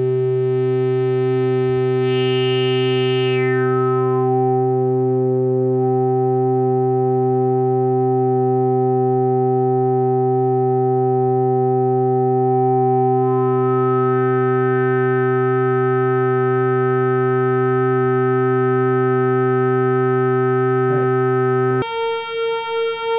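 Analog modular synthesizer holding a steady low drone rich in harmonics, its filter resonance picking out single overtones. A bright overtone slides down about two seconds in and climbs back up about twelve seconds in. Near the end the tone switches abruptly to a higher note.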